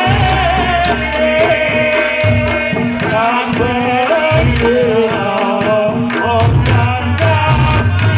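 Reog Ponorogo gamelan music: a large kendang drum struck with a wooden stick, deep drum tones and a hanging gong, under a wavering high melody line.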